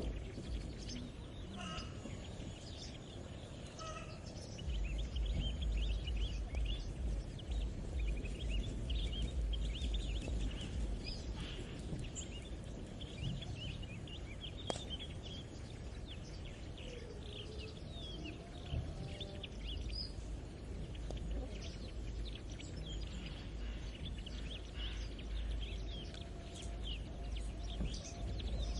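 Rural morning ambience: many small birds chirping and singing together over a low rumble. A few lower gliding calls come in about two-thirds of the way through.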